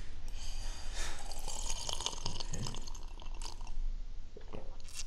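Someone drinking juice from a glass in several gulps: liquid sloshing, with swallowing sounds.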